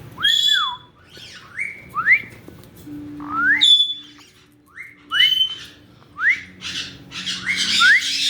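Caique parrots whistling: a run of short rising whistles, roughly eight of them, one after another, with harsh squawks growing louder near the end.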